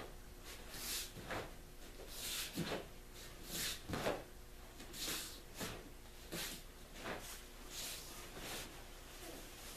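Sharp swishes and snaps of a taekwondo uniform with each block and strike of a black-belt form, about one a second, with a few soft thuds of bare feet on the foam mat.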